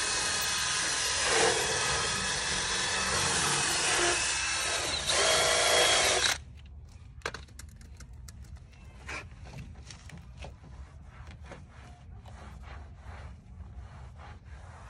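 Cordless DeWalt drill spinning a brush head against a vinyl door panel, a steady whir that gets louder about five seconds in and cuts off suddenly after about six seconds. After that come faint rubbing and light taps of a cloth wiping the vinyl.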